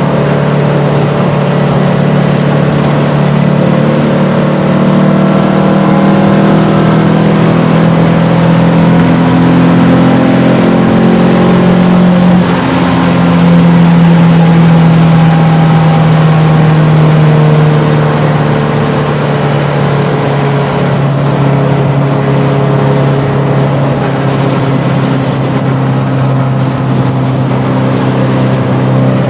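A VW Beetle's 2275 cc air-cooled flat-four, with Weber IDF carburettors and a merge-collector exhaust, heard from inside the cabin while driving: the engine note climbs steadily in pitch under acceleration for about twelve seconds, stays loud for a few seconds more, then eases off about eighteen seconds in and runs on at a steady cruise.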